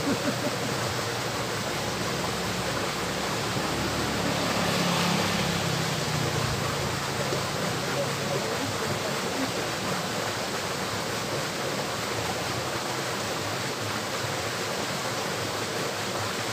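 Steady rush of water flowing in a small stream, swelling slightly for a few seconds about four seconds in.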